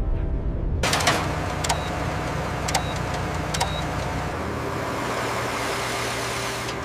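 Music cuts off about a second in, and a steady machinery noise starts suddenly in its place. A few sharp metallic clicks come in the first few seconds.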